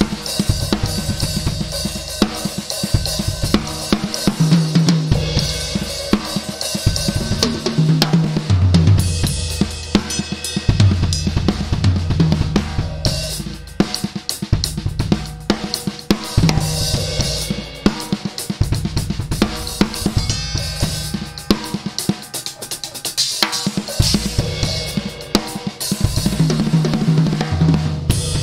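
A rebuilt Fibes drum kit played in a dense, busy pattern: bass drum, snare, hi-hat and many cymbals, with the toms ringing at distinct pitches that shift every second or so like a melody.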